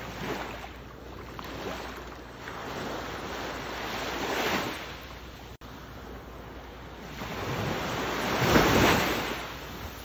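Ocean waves washing and surging in slow swells, the loudest wave rising and breaking near the end. A brief gap cuts the sound just past halfway.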